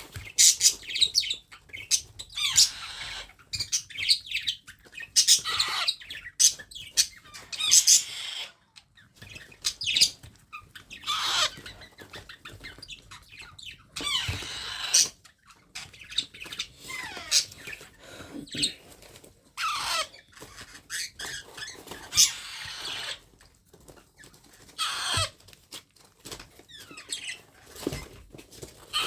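Baby parrot calling with short, repeated, downward-gliding chirps, mixed with sharp clicks and wing flapping.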